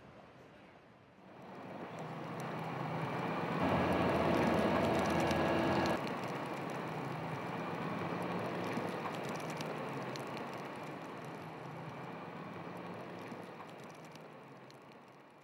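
Refuse truck running: a steady rumble rises about a second in and is loudest, with a steady whine, for about two seconds. It then drops back sharply to a steady run that slowly fades out.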